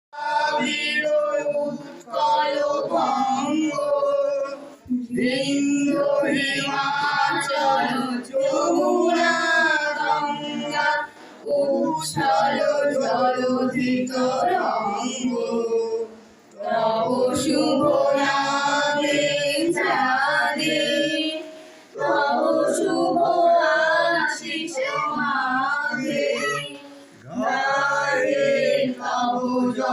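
A group of men and women singing together with little or no accompaniment, in long phrases broken by short pauses.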